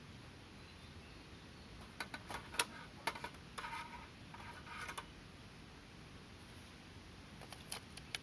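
Wood fire in a mont-bell Folding Fire Pit crackling, with a cluster of sharp pops about two to three seconds in and a few more near the end.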